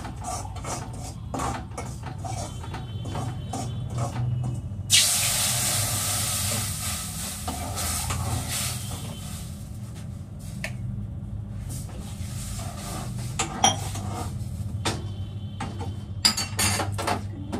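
Water poured into semolina roasted in hot ghee: a sudden loud sizzle about five seconds in that hisses and fades over several seconds. A spoon clinks and scrapes against the pan before and after, over a steady low hum.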